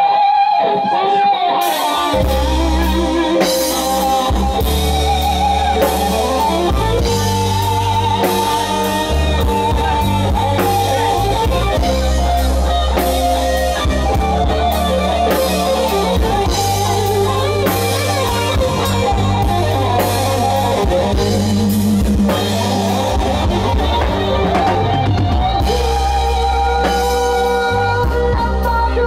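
Live band music played through a PA: drum kit, electric bass and guitar, with the bass line coming in about two seconds in.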